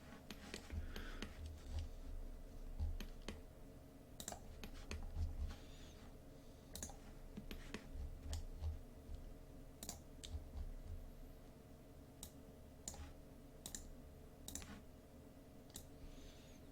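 Scattered, irregular clicks of a computer mouse and keyboard, some with a soft low thump, over a faint steady hum.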